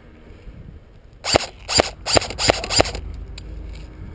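Airsoft electric rifle fired five times in semi-auto, sharp evenly spaced shots about three a second.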